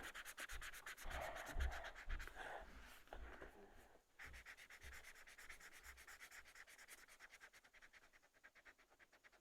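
Colouring in on paper: quick, even back-and-forth strokes rubbing faintly over the sheet, several a second, with a brief pause about four seconds in.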